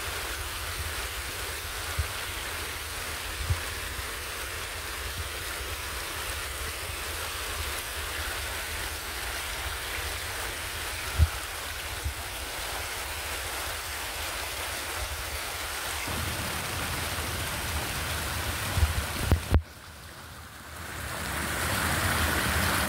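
Steady outdoor street noise: a hiss over a low rumble, with a few short knocks. Near the end it drops away sharply for about a second, then swells up again.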